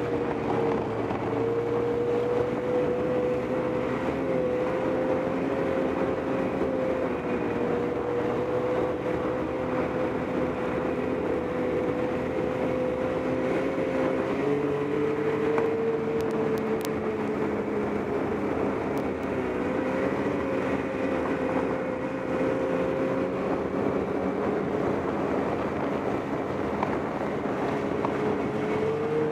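Snowmobile engine running steadily at trail-riding speed, heard from the rider's seat over a steady rush of noise. The engine note drops a little about halfway through and comes back up about two-thirds of the way in.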